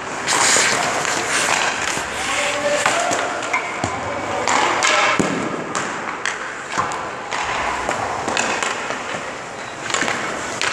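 Hockey skates scraping on the ice, with sharp clacks of sticks and pucks and pucks striking the net and boards, several times over.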